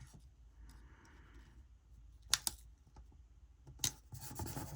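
Sticker sheets and paper being handled: a couple of sharp small clicks a second and a half apart, then light rustling near the end.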